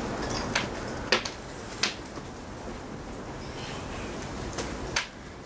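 About five light clicks and knocks, spread out, as a bolt is worked by hand into a bracket on a motorcycle frame.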